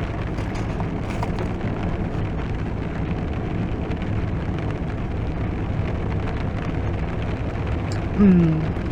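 Heavy rain pouring on a car, heard from inside the cabin as a steady hiss with a low steady hum under it. A short falling vocal sound comes near the end.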